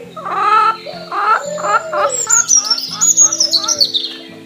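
Background music with steady held notes and a quick pitched melody, overlaid with bird chirping; a run of rapid high descending chirps comes in the second half.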